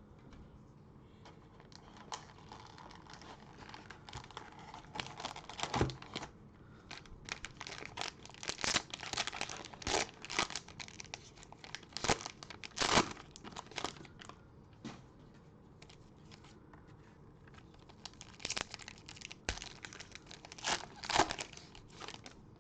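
Cellophane wrapper of a trading-card cello pack being torn open and crinkled, in repeated bursts of tearing and crackling with a pause in the middle.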